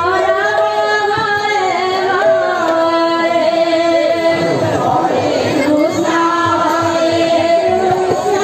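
Devotional kirtan singing: a woman's voice holding long, drawn-out notes that glide between pitches, over instrumental accompaniment.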